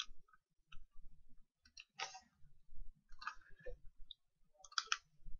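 Faint, scattered clicks of a computer mouse with a few small handling noises, a handful over several seconds, as a line is drawn on a spreadsheet chart.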